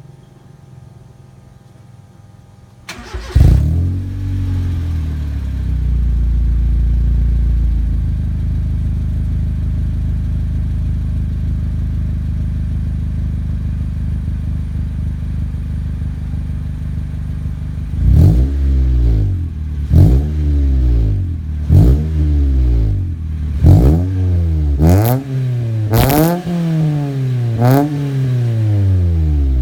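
Honda Civic 1.7-litre four-cylinder engine breathing through an HKS Silent Hi-Power muffler. It starts about three seconds in, idles a little high for a few seconds, then settles to a steady idle. From about two-thirds of the way through it is blipped about seven times in quick revs that rise and fall.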